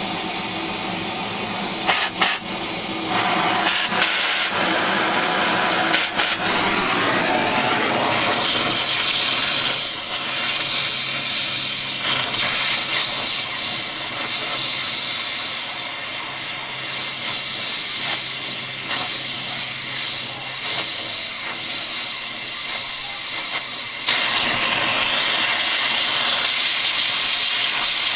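Gas cutting torch burning with a steady hiss, heating a broken bolt stuck in the cylinder head. It drops back about a third of the way in and grows louder again near the end, with a few clicks early.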